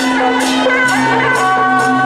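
Temple procession music: a held melody that slides between notes over a steady low drone, with metal percussion strikes about twice a second.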